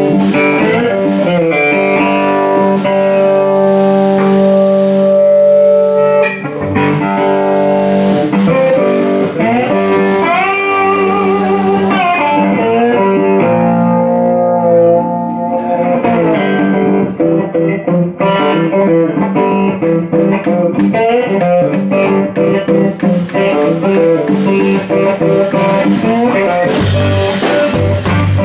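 Live band playing blues: electric guitars lead with sustained notes and pitch bends over the band.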